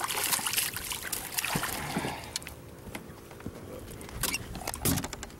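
Water splashing and dripping as a hooked fish thrashes at the surface and is lifted aboard in a landing net, easing off about halfway through. A few light knocks near the end.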